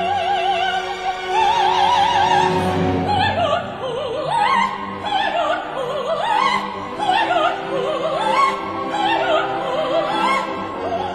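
Background music: operatic singing with a wide vibrato over an orchestral accompaniment.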